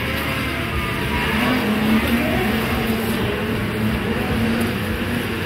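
Racing snowmobiles' two-stroke engines running hard on a snocross track, their pitch wavering up and down as the sleds accelerate and ease off.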